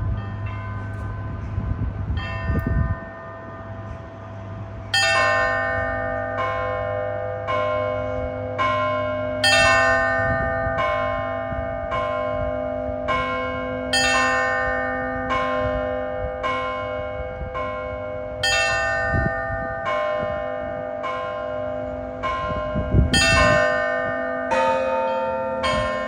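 Russian Orthodox church bells rung by hand by a single bell-ringer. Lighter ringing for the first few seconds, then about five seconds in the full set comes in: several bells struck over and over in a steady repeating rhythm, each stroke ringing on under the next.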